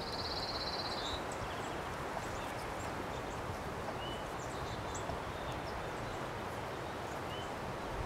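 Outdoor ambience: a steady background hiss with small birds chirping now and then, including a short buzzy trill in the first second.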